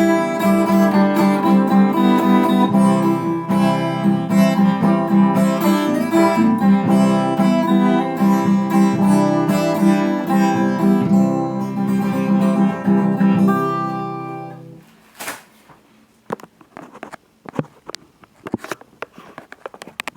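Acoustic guitar strumming the closing chords of a song, then ringing out and fading away about fifteen seconds in. After that come scattered faint taps and clicks.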